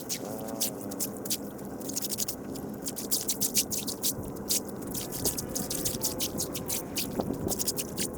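Water dripping and splashing, with many sharp ticks and pops throughout, and a short animal call about half a second in.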